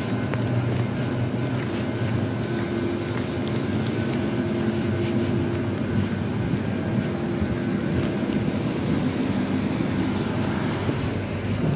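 Steady low hum of electric passenger trains standing at a station platform, with a few steady low tones from their running equipment.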